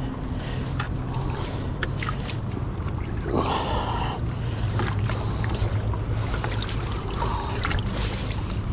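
Water splashing and dripping as hands grab live shad in a bait bucket, with a brief louder splash about three and a half seconds in, over a steady low rush of running river water.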